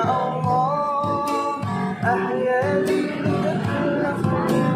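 Acoustic guitar music playing a sholawat tune, with a gliding, ornamented melody over regularly plucked notes.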